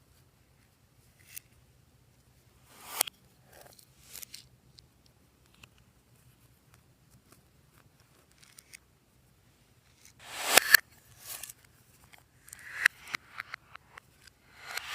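Slime being handled and mixed, making sticky crackling and squelching sounds in scattered bursts, busiest and loudest from about ten seconds in.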